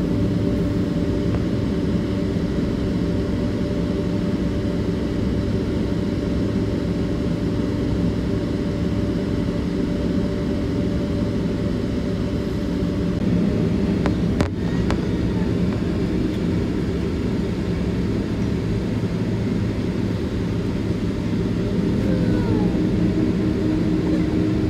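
Steady engine drone and air rush of a Boeing 767-300ER, heard from inside the passenger cabin while it is on the ground before takeoff, with several even hum tones over the rumble. A single short click comes about 14 seconds in.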